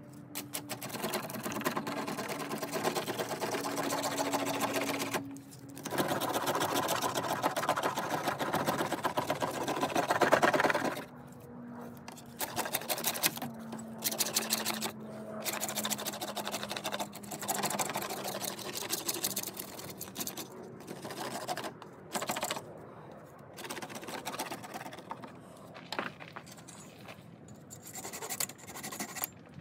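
Knife blade scraping bark off a wooden stick in fast repeated strokes: two long runs in the first eleven seconds, loudest near the end of the second run, then shorter bursts with pauses between them.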